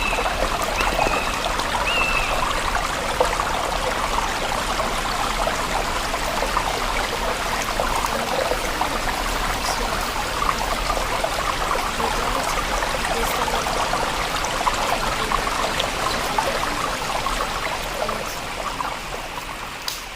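Stream water babbling steadily over its bed, fading down over the last couple of seconds.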